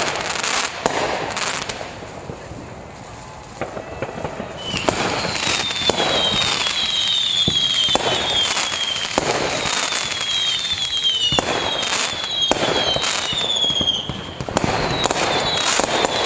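Fireworks display: repeated sharp bangs and crackling bursts, with several short whistles falling in pitch. A brief lull about two seconds in.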